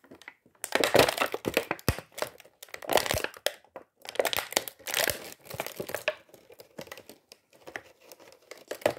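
Clear plastic toy packaging crinkling in irregular bursts as it is handled, louder and busier in the first six seconds.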